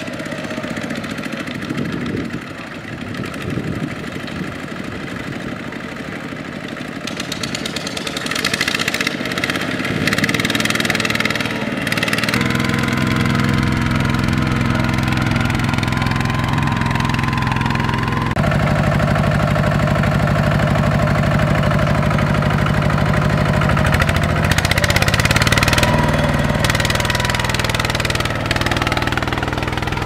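Single-cylinder diesel engine of a two-wheel walking tractor running steadily. It grows louder about a third of the way in, changes pitch about two-thirds of the way in, and rises and falls briefly near the end.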